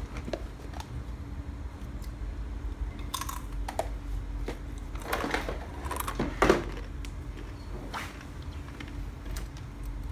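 Someone eating crunchy snacks close to the microphone: a run of irregular crunches, clustered around the middle, the loudest a little past halfway.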